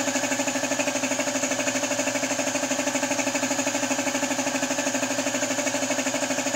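Small piston air compressor running steadily with a rapid, even pulse, supplying air to a paint spray gun; a high hiss sits over it.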